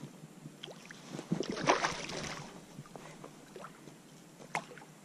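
Hooked redfish splashing and thrashing at the surface beside a kayak: a burst of water noise about a second and a half in that lasts about a second. A single sharp knock comes near the end.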